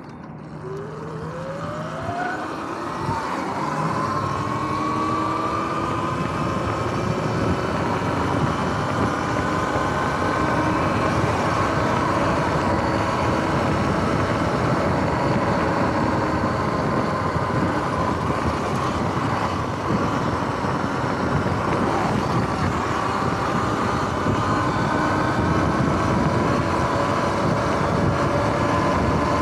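Electric dirt bike's motor whining upward in pitch as it pulls away and gathers speed, then holding a steady whine over wind and tyre noise.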